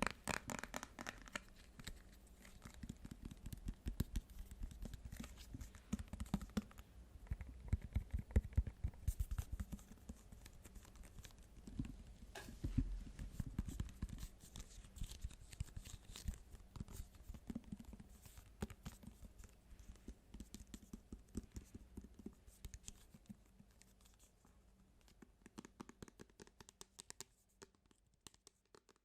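Rapid, irregular fingertip and fingernail tapping with some scratching on assorted small objects, many quick taps in a row. The taps thin out near the end and stop just before it finishes.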